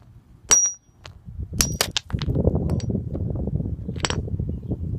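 Sharp ringing hammer blows on a hard fossil-bearing rock: one strike, then two quick ones about a second later, and another near the end, without the rock breaking. From about two seconds in, a low rough rustling noise runs under them.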